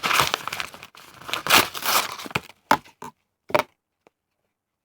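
A shipping package being torn open by hand: rough tearing and crinkling of the packaging for about two and a half seconds, then a few short sharp rustles and clicks as it comes apart.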